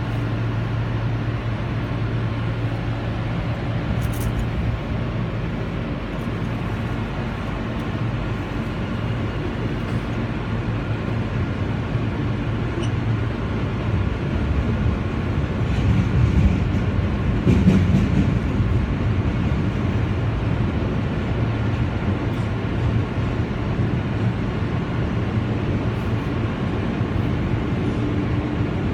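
Subway train running, heard from inside the car: a steady rumble and low hum, growing louder with some clatter a little past the middle.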